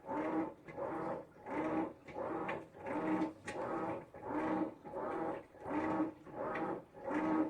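Whirlpool Xpert top-load washing machine on its express cycle, its motor whirring through the wash action in short strokes that reverse direction about every two-thirds of a second, churning the load.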